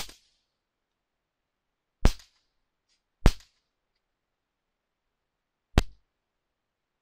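Mauser 1910-14 pocket pistol in 6.35 mm (.25 ACP) being fired: four sharp shots at an uneven pace, the first right at the start, then about two seconds later, a second after that, and again about two and a half seconds on, each with a short ringing tail.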